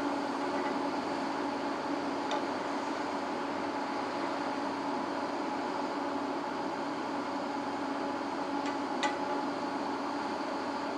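Steady hum of construction machinery on a foundation drilling site, with a few sharp metallic strikes of a hammer on the steel casing's clamp: one about two seconds in and two close together near the end.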